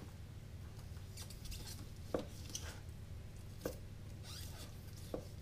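Kitchen knife sawing through a smoked beef pastrami on an end-grain wooden cutting board. The blade knocks on the board three times, about every second and a half, as each slice comes free.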